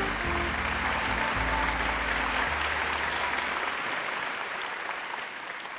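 Lecture-hall audience applauding, steady and slowly dying down toward the end. Low music notes play underneath in the first half.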